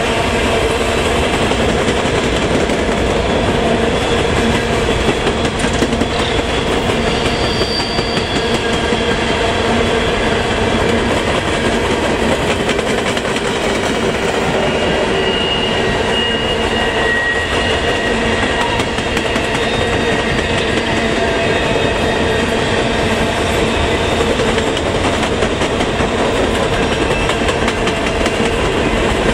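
Coal hopper cars of a freight train rolling past at speed: a steady rumble and clatter of steel wheels over the rails, with a few brief, faint high wheel squeals.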